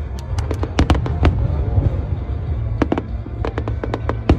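Aerial fireworks bursting in quick clusters of sharp bangs and crackles over a steady deep rumble.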